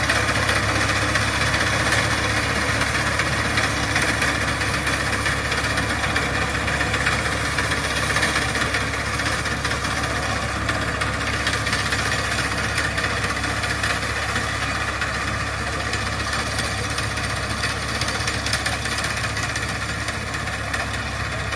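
Tractor's diesel engine running steadily, its sound slowly easing a little.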